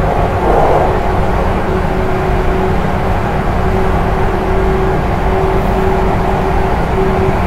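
JNR 475 series EMU (KuMoHa 475-42) running through the Kurikara Tunnel, heard from its vestibule deck: the steady noise of its MT54 DC traction motors and 19:80 gearing, with a pitched tone that fades in and out.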